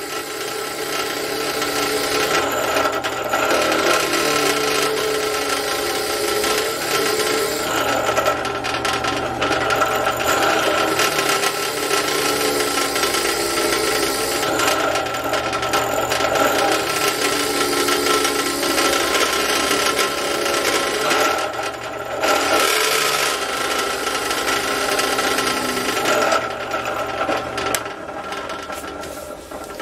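Benchtop drill press boring into a workpiece: a steady motor hum under a rough, rasping cutting noise that eases briefly a few times as the feed pressure changes, dropping away near the end.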